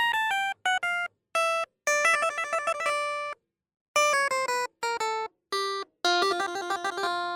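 Background music: short phrases of bright, plucked or bell-like notes that step down in pitch, broken by brief dead-silent gaps between phrases.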